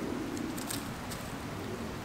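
Dead branch handled and laid down on dry leaf litter and twigs: rustling with a few sharp crackles between about half a second and a second in, over a steady hiss.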